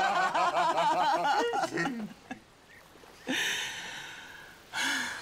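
A woman and a man laughing together, loud and wavering for about two seconds, then dying away into two shorter breathy laughs.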